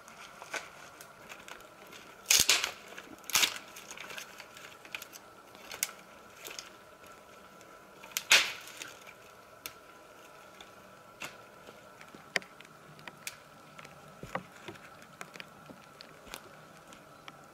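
Dry branches and twigs crackling and snapping as they are handled and laid onto a branch shelter, with scattered small clicks and a few louder crunches about two, three and eight seconds in.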